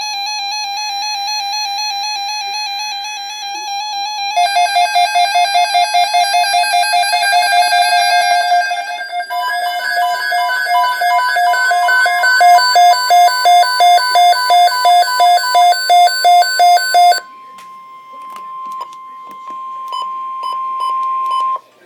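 Emergency alert tones from a weather radio broadcast. Electronic alarm tones change pitch several times and pulse about twice a second, laid over a steady alert tone near 1 kHz (NOAA Weather Radio's warning tone is 1050 Hz). The pulsing alarm cuts off about 17 seconds in, and the steady alert tone runs on alone until it stops shortly before the end.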